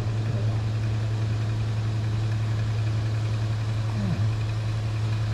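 A machine running with a steady low hum that does not change in speed or level.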